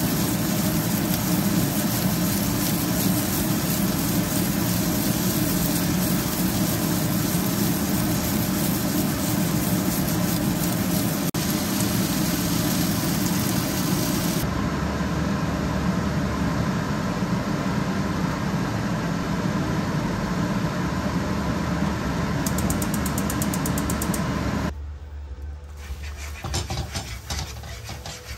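Sliced Taiwanese sausages sizzling steadily in a hot nonstick frying pan. About 25 seconds in, the sizzle drops much quieter, and a spatula stirs and scrapes beaten eggs setting in the pan near the end.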